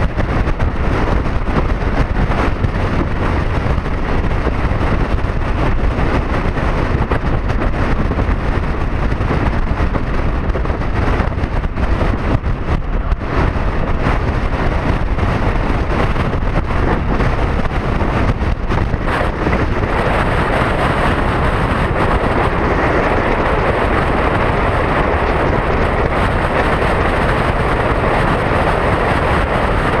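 Steady rush of wind and road noise from a BMW K1600 GTL motorcycle riding at highway speed in strong wind, with a heavy low rumble underneath. About two-thirds of the way through, the rushing gets louder and brighter.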